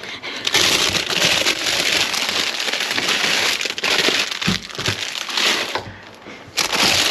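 Plastic-and-mesh bags of potatoes rustling and crinkling as they are handled and lifted out of a plastic wheelie bin into a crate, with a few dull knocks about four and a half seconds in. The rustling dies down briefly near the end, then starts again.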